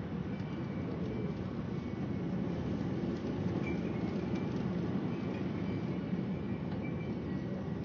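Strong wind blowing in a steady low rumble.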